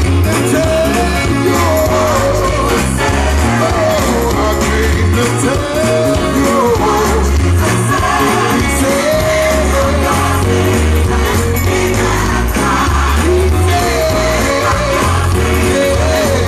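A recorded gospel song playing: a lead singer's melody over a steady bass line and beat.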